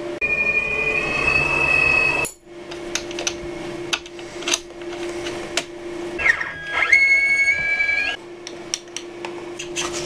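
Plastic clicking and rubbing as a clear acrylic dust shroud is handled and fitted around a CNC router's spindle, over a steady machine hum. A high whine sounds for the first two seconds, and another dips and rises from about six to eight seconds in.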